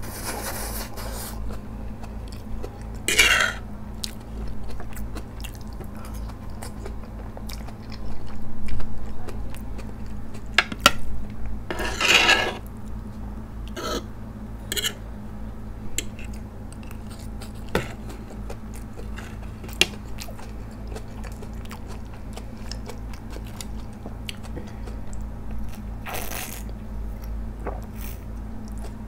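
Close-miked eating sounds: ramen noodles slurped in several loud bursts about a second long, with chewing between them, and a metal fork and spoon clinking and scraping sharply against a plate. A steady low hum runs underneath.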